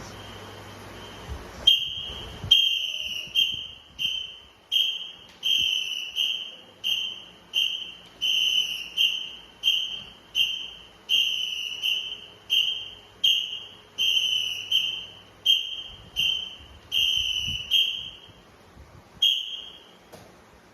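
A whistle blown in a long run of short, evenly spaced blasts, about one and a half a second, calling the beat for a calisthenics drill; after a brief gap comes one last blast near the end.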